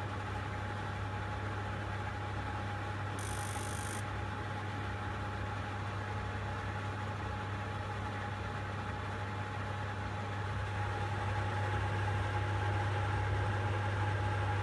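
Gas heater running just after relighting: a steady hum with a constant tone, a brief high hiss about three seconds in, and a little louder from about ten seconds in. The heater keeps shutting off and relighting in cycles and never stays lit long enough to warm up.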